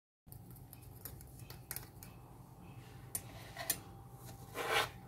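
Metal spoon clicking and scraping against a thin plastic cup while pressing crumbly sellou into it, a handful of faint light clicks with a louder scrape near the end.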